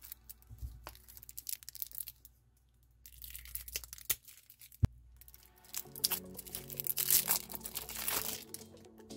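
Clear plastic shrink-wrap being torn and crinkled off a stack of trading cards. Scattered crackles come first, then a single sharp click about halfway, and a dense stretch of crinkling near the end.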